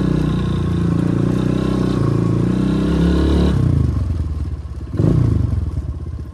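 Motorcycle engine running under throttle, then the revs drop away a little past halfway through as the bike rolls to a stop and settles to a low, pulsing idle. A single thump about five seconds in.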